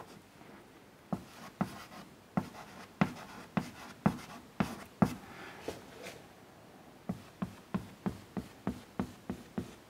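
Chalk tapping and scratching on a blackboard as a word and an arrow are written: a run of short sharp taps, about two or three a second, with a brief pause about six seconds in.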